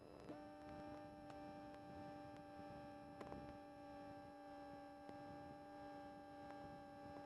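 Faint, steady electronic hum of several tones, switching on abruptly just after the start and holding level, with a few faint clicks.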